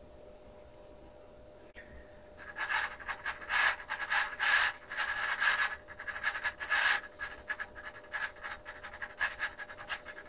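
Servo-driven variac in a 1990 Dactron Auto STAC ST1000W AC voltage regulator: the small DC motor and its gear train sweep the carbon brush across the toroidal winding, a scratchy rubbing in rapid stuttering spurts that starts about two seconds in. This is the regulator correcting a low output voltage back up automatically. A faint steady hum sits underneath.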